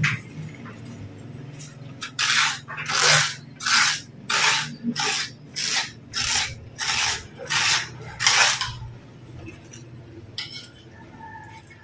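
About ten evenly spaced rasping strokes, roughly one and a half a second, starting about two seconds in and stopping near the nine-second mark.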